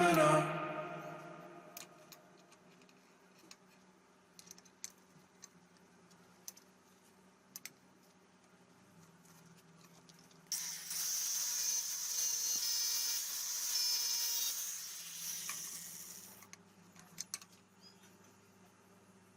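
Scattered light clicks and taps of hand work, then a small power tool's motor starts suddenly about halfway through, whirs with a high whine for about four seconds and winds down.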